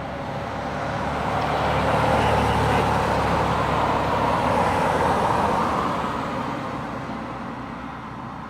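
A vehicle driving past on the road, its tyre and engine noise swelling to a peak a couple of seconds in and then fading away.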